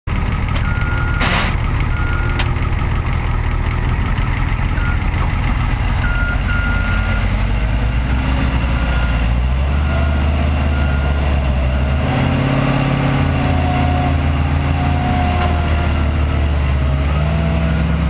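Diesel engine of a CAT skid steer running under load as it pulls a mud-stuck Ford F250 flatbed on a tow strap, its note changing about halfway through and again a couple of seconds later. Short high beeps come and go through the first half.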